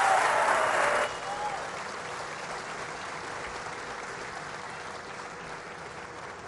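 Large seated crowd applauding. The clapping is loud for about the first second, drops suddenly, and then fades steadily.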